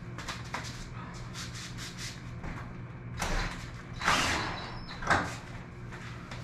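Knocks, rattles and scraping against a sectional sheet-metal garage door as PVC rod holders are handled on it. A run of small clicks gives way to a few louder scraping rasps in the second half, the loudest about four seconds in, over a steady low hum.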